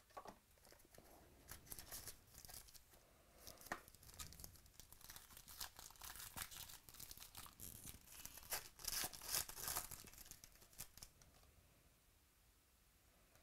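Packaging of a Gold Standard Football trading-card box being torn and crinkled by hand, a run of short rips and rustles that is loudest about nine seconds in.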